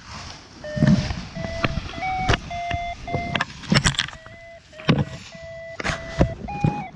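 Camera knocking and rubbing against clothing as its carrier walks through grass, with sharp thuds and fabric rustling. Behind it runs a string of short, steady pitched tones that step up and down in pitch.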